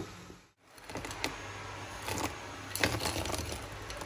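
A spatula scraping and clicking in a stainless steel mixing bowl of cocoa cake batter, with a few sharp taps in small clusters after a brief dropout about half a second in.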